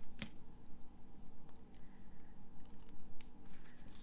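Faint rustles and scattered light clicks of die-cut paper and vellum pieces being handled on a craft table, with a sharper click just after the start and a few more near the end.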